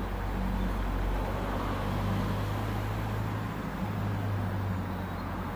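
A steady low engine hum, swelling and easing slightly, over an even background hiss.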